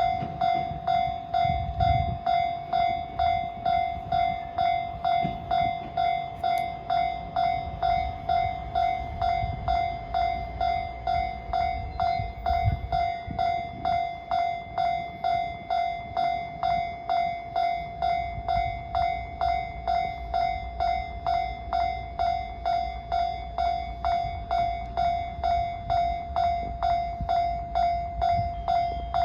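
Japanese level-crossing warning bell ringing its electronic ding-ding, an even pulsing tone just under two strikes a second.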